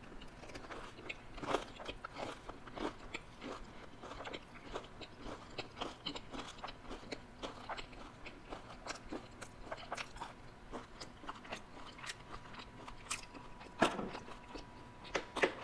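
Close-miked chewing of a crunchy bite of food: a steady run of small irregular crunches and mouth clicks. Near the end come a few sharper knocks as the spice jar is handled on the table.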